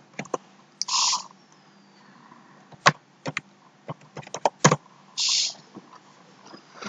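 Computer keyboard keystrokes: scattered single clicks, then a quick run of keys near the middle ending in a louder stroke. Two short breathy hisses stand out, about a second in and about five seconds in.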